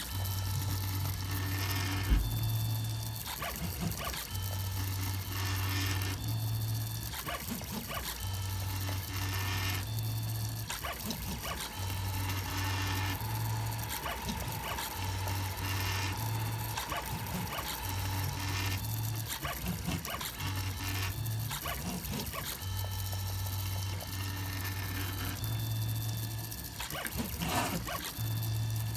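3D printer's stepper motors running as the print head and bed move through a layer, a low hum that starts and stops every second or so, shifting pitch from one move to the next. A higher steady whine joins in for a few seconds in the middle.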